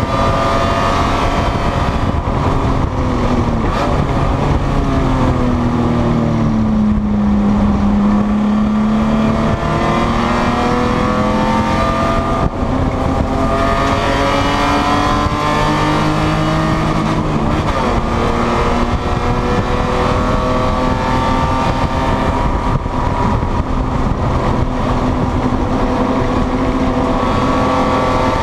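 BMW E30 race car's engine heard from inside the cabin, rising and falling in pitch several times as the car accelerates and slows. The note is lowest around eight seconds in, with a quick drop near eighteen seconds before it climbs again, over a steady rush of road and wind noise.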